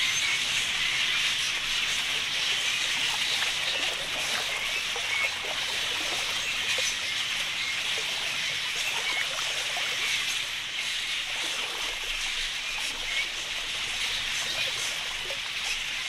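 A large flock of budgerigars chattering: a dense, steady mass of short chirps.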